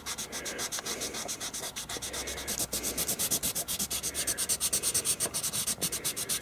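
White Stabilo CarbOthello pastel pencil shading back and forth on tan paper: a quick, even scratching of many short strokes a second.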